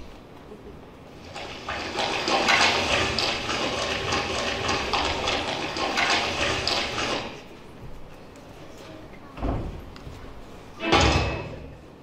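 Rushing, splashing water sound effect playing in the hall for about six seconds, then two dull thumps near the end, the second louder.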